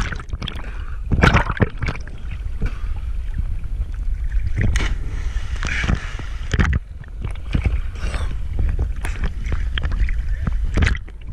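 Sea water sloshing and slapping against a camera floating at the surface, with a steady low rumble and several sudden splashes as small waves wash over it, the biggest about a second in.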